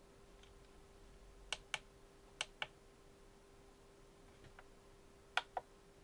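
Buttons on a Radiomaster Zorro radio transmitter clicking as its menus are stepped through: four quick pairs of sharp clicks, the third pair faint, over a faint steady hum.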